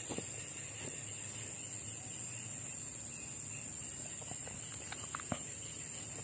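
Insects chirring steadily in one high, even band, with a few faint soft ticks.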